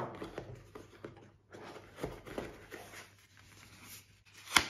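Hands handling a cardboard box and its folded card insert: light rubbing and scraping of card with a few taps, the sharpest a single click just before the end.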